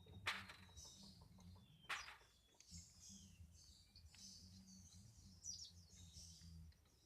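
Faint birds chirping and twittering in the background, with two sharp clicks about a second and a half apart near the start and a faint steady low hum underneath.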